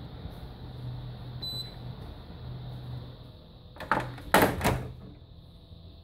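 Split air conditioner's indoor unit gives a short electronic beep as its Test/Auto button is pressed, then its hinged plastic front panel is shut with a few loud clacks about four seconds in.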